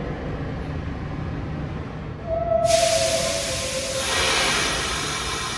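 New York City subway train in the station, rumbling steadily. About two seconds in a steady tone sounds for a second or so, then a sudden loud hiss cuts in and swells again near the four-second mark.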